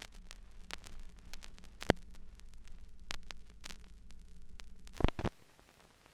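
Irregular crackling clicks over faint hiss and a steady low hum, like the surface noise of an old soundtrack. Two louder clicks come about five seconds in, and then it cuts to near silence.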